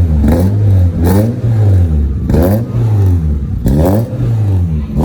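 Renault Clio 182's 2.0-litre four-cylinder engine revved in repeated throttle blips, about four or five, the pitch rising and falling back to idle each time. It is being revved to check for a slight misfire that new spark plugs, coil pack, leads and injectors were meant to cure.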